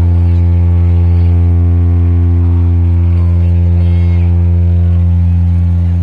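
A large stack of DJ loudspeaker boxes playing one deep, steady bass tone with overtones, held unchanging as a sound check.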